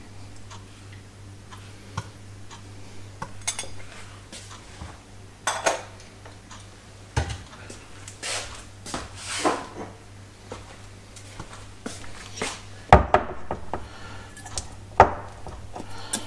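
Kitchen clatter: a metal spoon clinking against stainless-steel bowls as salt is sprinkled over chicken wings, then scattered knocks and a few brief swishes, with two louder knocks near the end. A low steady hum sits underneath.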